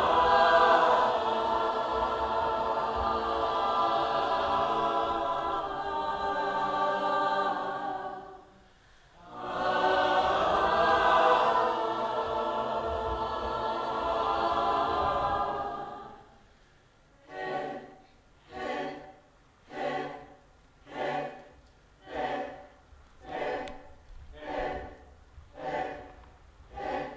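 Unaccompanied choir singing two long held chords, with a brief break between them. About two-thirds of the way in it switches to short, detached sung notes repeated roughly once a second.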